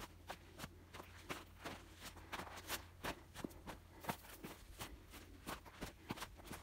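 Footsteps on dry, stony desert dirt and gravel: a steady run of short crunching scuffs, about three a second, at a walking pace.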